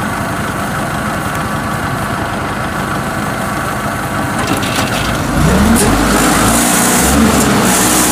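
Small tracked rice combine's engine running as the machine drives over the stubble; about five seconds in it revs up, rising in pitch and getting louder.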